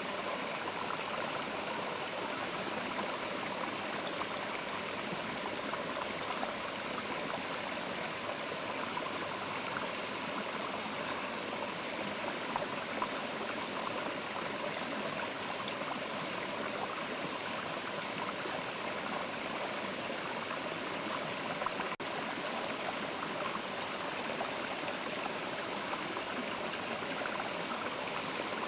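Mountain river rushing steadily over rocks, a continuous even water noise.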